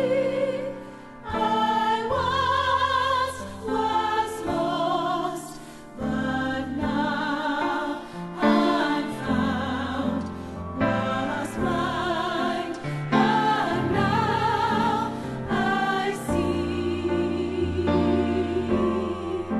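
Choral music: voices singing slow, held phrases with vibrato, with short pauses between phrases.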